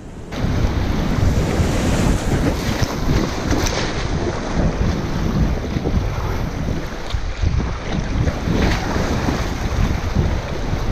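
Rushing whitewater splashing around an inflatable kayak running a rapid, with wind buffeting the helmet-mounted camera's microphone.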